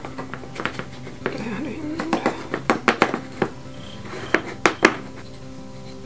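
Sharp clacks of laser-cut plywood gears, painted to look like metal, knocking together as they are fitted onto a dowel and handled. There is a cluster of clacks around the middle and three more a little later, over steady background music.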